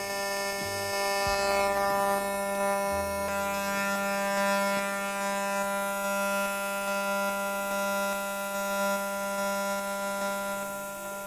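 TIG welding arc on titanium: a steady, high buzzing hum at one unchanging pitch, held throughout and cutting off near the end as the arc is stopped.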